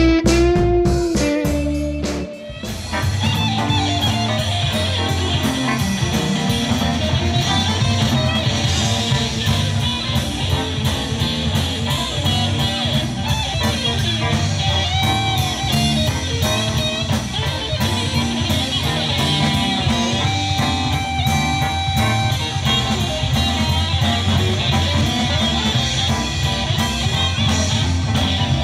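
Live blues band playing amplified through stage speakers: electric guitars, keyboard and drum kit over a steady drum beat. About two seconds in the sound cuts briefly, and the band music runs on from there.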